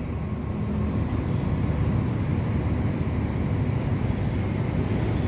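Train at a railway station giving a steady low rumble that grows slightly louder over the first second.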